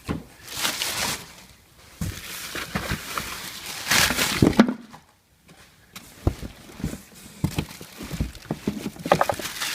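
Cardboard box and packaging rustling and knocking as items are handled and searched through, in bursts with a short pause about halfway.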